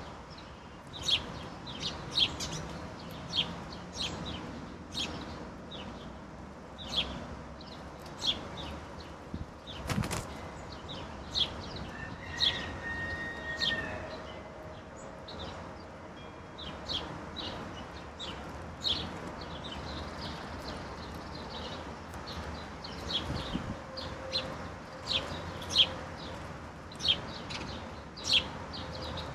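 Songbirds giving short, sharp chip calls over and over, about one every second or two. A single sharp click sounds about ten seconds in.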